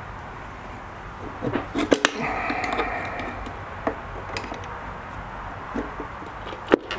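Scattered metal clicks and knocks, with a short strained squeak, as a long-handled tool pries the primary case cover off an Excelsior-Henderson V-twin against the strong pull of the stator's magnetic rotor, over a steady low hum. The loudest knocks come near the end.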